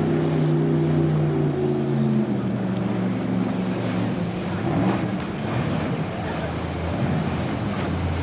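Small jet boat's engine running hard at speed, with the rush of water and spray from the hull. Its pitch drops about two seconds in and then wavers.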